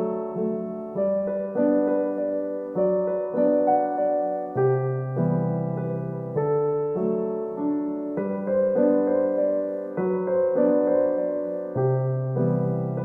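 Background piano music: a gentle, slow piano piece with notes and chords struck about every half second, each fading before the next.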